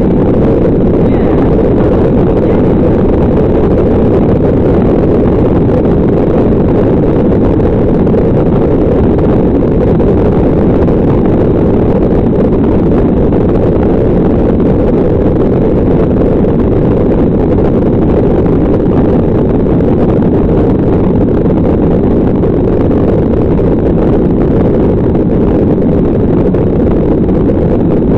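Loud, steady rumble of a Boeing 737 passenger jet heard from inside the cabin: engine noise and rushing air, mostly low-pitched and unchanging throughout.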